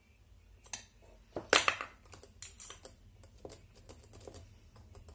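Small plastic and metal parts of an RC car's front suspension clicking and knocking as they are handled and fitted, with a louder clatter about one and a half seconds in and lighter scattered clicks after it.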